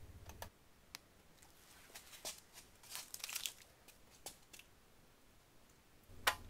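Faint rustling and a few light clicks from hands handling VHB tape and sheet-steel sign pieces, with one sharper click near the end.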